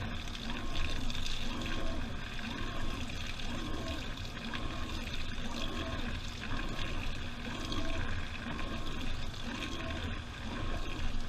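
Washing machine drum turning during the wash, heard from inside: water sloshing and splashing with the load, in a swell that repeats about once a second.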